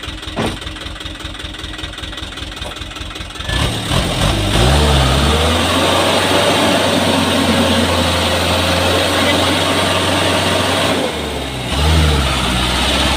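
Hino Dutro truck's diesel engine idling with an even chugging pulse, then revved hard about three and a half seconds in and held at high revs as the truck tries to pull out of deep mud. The revs ease briefly near the end, then climb again.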